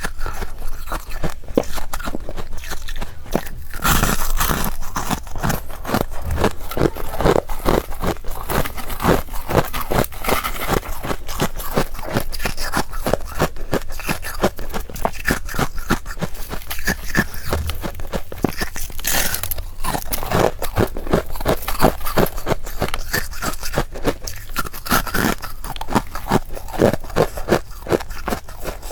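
Close-miked biting and chewing of powdery freezer frost: a dense run of soft, crisp crunches, several a second.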